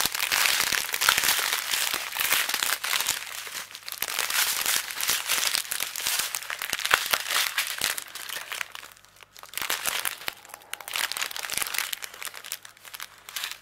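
Small plastic bags of diamond-painting drills crinkling and rustling as they are handled: a continuous crackle of thin plastic, with a brief lull about nine seconds in.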